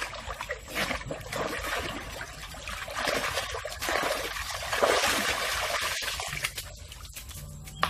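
Water trickling and splashing in uneven surges, louder about three and five seconds in.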